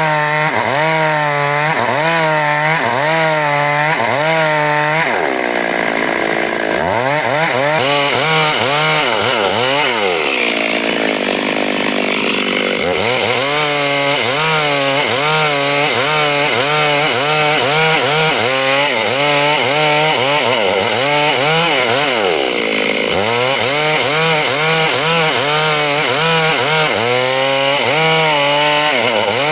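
Chainsaw cutting wood at high revs, its engine pitch rising and falling about once or twice a second as the saw works through the cut. Twice, around five and ten seconds in, the engine drops to a lower, steadier speed before cutting again.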